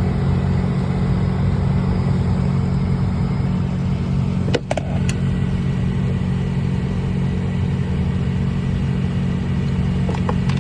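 Steady low hum of the 2003 Acura TL running with its cabin blower fan on. A few sharp clicks come about halfway through and again near the end.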